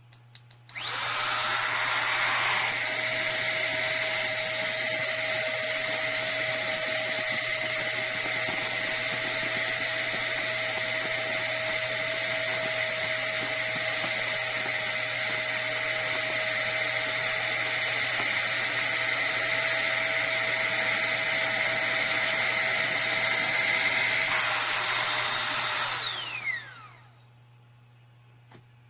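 Flextail Tiny Pump 2 mini electric air pump: a few clicks, then its small fan motor runs with a steady high-pitched whine for about 25 seconds. Near the end it is switched off and the whine falls in pitch as the fan spins down.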